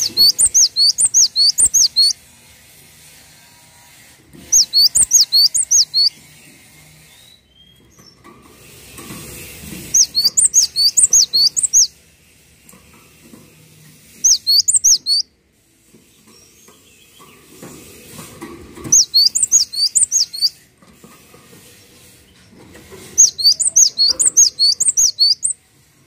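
Cinereous tit (gelatik batu) singing: six bursts of rapid, repeated high notes, about five notes a second, each burst lasting about two seconds with a few seconds' pause between bursts.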